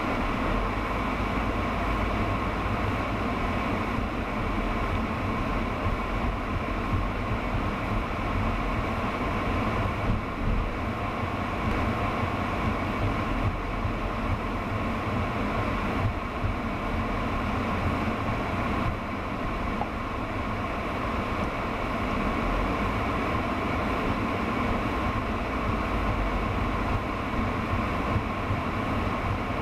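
Car driving slowly, heard from inside the cabin through a dashcam: low, steady road and engine rumble with a constant hum over it.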